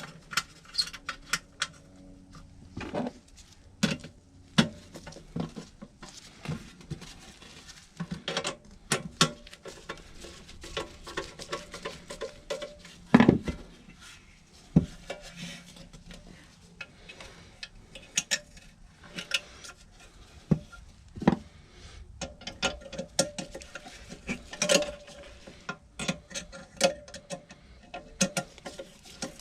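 Irregular metallic clinks and knocks of hand tools and metal parts being handled during the replacement of an HVAC inducer motor, over a faint steady hum. The loudest knock comes a little before halfway.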